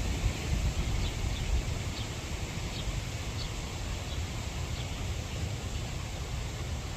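Wind buffeting the microphone in a steady low rumble, with a hiss of moving air. Faint, short high chirps come through it roughly every half second to second in the middle of the stretch.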